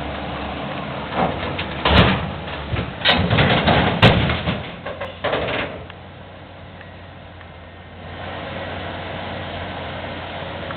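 Bulldozer engine running steadily while it moves a big truck. In the first half there is a run of loud metal clanks and bangs. The engine sound dips for a couple of seconds, then comes back.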